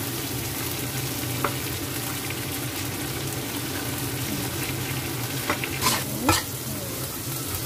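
Flowering garlic chives and smoked duck sizzling in a hot wok as a metal spatula stirs and tosses them, with a steady frying hiss and scrapes and clinks of the spatula on the wok, busiest about six seconds in.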